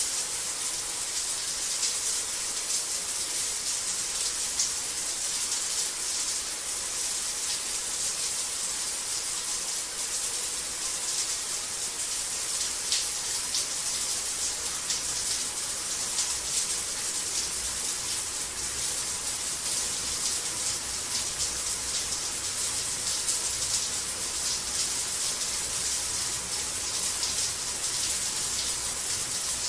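Shower running: water spraying steadily from the shower head and splashing, a constant hiss with fine flickering patter.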